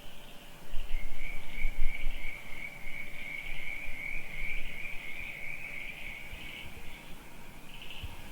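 Crickets trilling steadily at night, a continuous high-pitched chirring with a faint pulse. A low rumble swells about a second in and is the loudest sound for a moment, with a few low thumps near the end.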